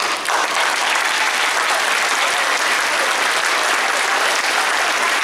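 Audience applauding, loud and steady, starting suddenly.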